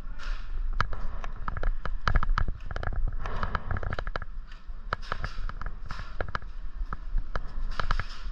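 Airsoft guns firing: many sharp pops, scattered single shots and short rapid runs, irregularly spaced and thickest a couple of seconds in.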